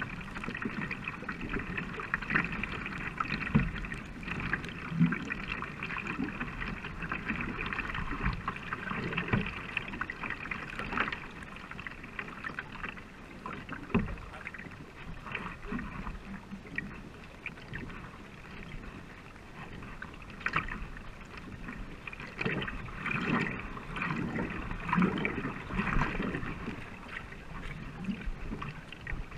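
Racing canoe under way: water splashing and rushing along the hull, with the irregular swishes and splashes of paddle blades pulling through the water.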